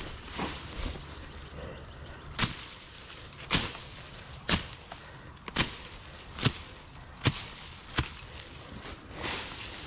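A series of about seven sharp chopping strikes, roughly a second apart and coming a little faster toward the end, followed by a soft swish near the end.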